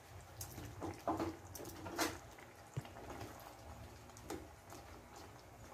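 Pot of pork braising in soy sauce and pineapple juice, simmering: faint bubbling with scattered small pops and a few sharper clicks. A spatula stirs through the pot.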